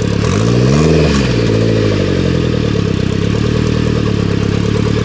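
Off-road buggy's engine running at a steady idle, revved up once about half a second in and dropping back within about a second.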